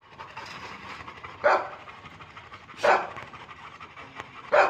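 Dog panting steadily, with three loud, short barks about a second and a half apart.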